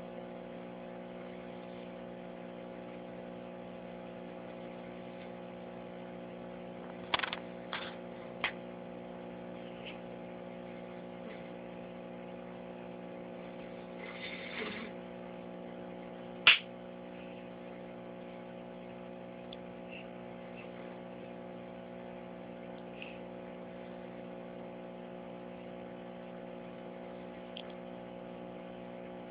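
A steady hum, broken by three quick clicks about seven seconds in, a brief rustle about halfway through, and one sharp click a couple of seconds later.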